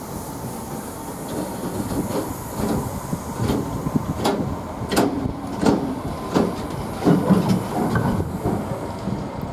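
Freight train wagons rolling past behind a Class 66 diesel: a steady rumble with a run of wheel knocks over rail joints, clickety-clack. The knocks start about two seconds in and are strongest around the middle.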